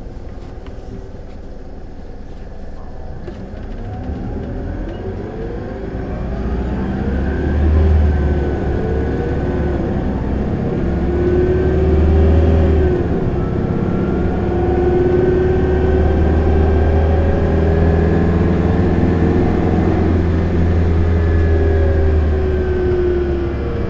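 Isuzu Erga city bus's turbo-diesel engine revved hard in third gear under Power mode, heard from inside the cabin, its note and a whine climbing over the first eight seconds, dipping briefly about halfway through, then held high and easing near the end. This bus is known for an abnormal vacuum-cleaner-like whine.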